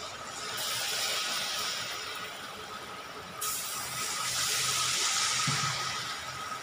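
Battered nendran banana slices sizzling as they are dropped into hot oil for deep-frying. The frying hiss swells about half a second in and surges again suddenly about three and a half seconds in, as another piece goes into the oil.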